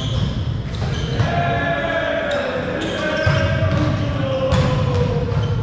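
Basketball bouncing on the court during play: a string of sharp knocks over a low thudding, with voices behind it.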